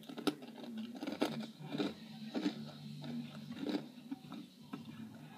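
A person chewing a mouthful of Froot Loops cereal close to the microphone: a series of irregular crunches.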